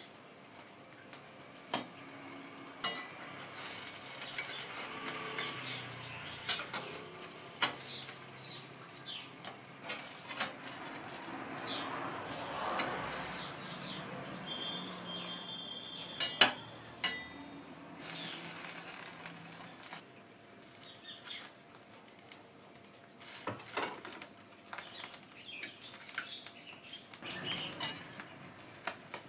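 Kitchen utensils clinking and knocking against dishes and a pan, in irregular short clicks and taps, with some sizzling from the pan.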